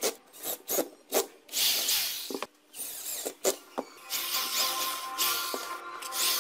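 Power drill boring and driving screws into wooden blocks and a metal drawer slide in several short bursts, after a few sharp knocks of parts being handled.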